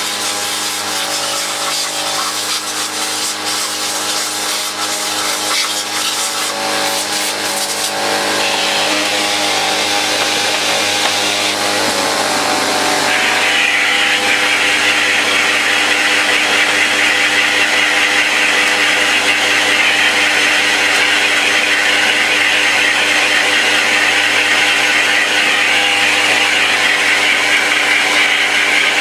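Vacuum cleaner running steadily, with its motor's steady whine. About halfway through, the rushing air hiss grows louder and stays louder.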